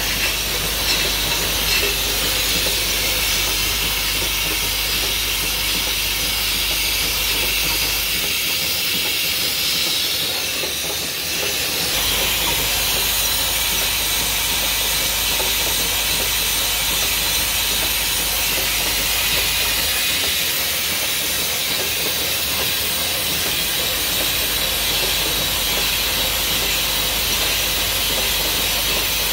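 Fully automatic four-head crown capper running: a steady hiss with machine noise, and a low hum underneath that cuts out twice for a few seconds.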